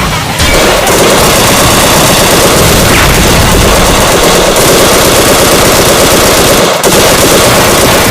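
Loud, dense rapid-fire rattle of a battle sound effect, like machine-gun fire. It runs unbroken apart from a brief break about seven seconds in.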